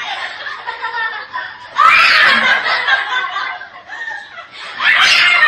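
Young children laughing excitedly in loud bursts, about two seconds in and again near the end.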